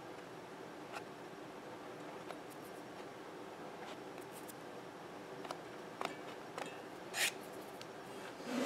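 Fingers pressing and rubbing a new foam surround onto a loudspeaker cone's glued edge: faint handling noise with a few small clicks, a short rustle about seven seconds in, and louder rubbing starting near the end.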